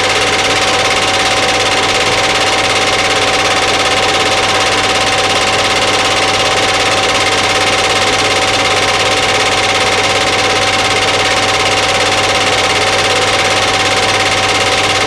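Steady, loud machine whir: an even hiss with a constant low hum and a steady mid-pitched whine, holding level with no breaks or changes.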